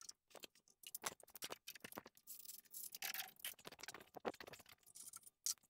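Scattered light clicks and scrapes of metal on metal as a reamer or drill in the chuck is handled and drawn out of a freshly reamed hole by hand, with the machine's motor stopped.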